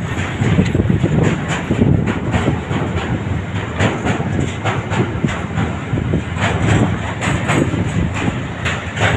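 Freight train of four-axle tank wagons rolling past: a steady rumble of steel wheels on rail, with many short clacks from the wheels and bogies at uneven intervals.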